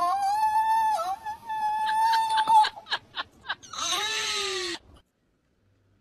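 Cockatiel calling: one long held whistle-like call, then a few short chirps, then a harsher screech that falls in pitch, cutting off suddenly about five seconds in.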